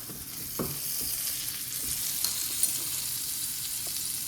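Wagyu top sirloin steak searing in butter and garlic in a hot pan: a steady sizzle with a few sharp ticks of spatter.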